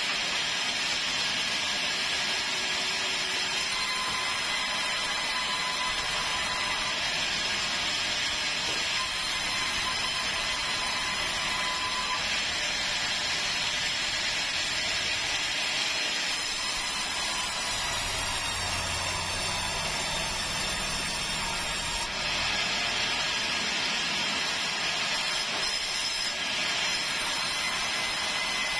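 A sawmill saw running and cutting keruing timber into boards, a steady loud whirring hiss. A deeper rumble comes in for a few seconds about two-thirds of the way through.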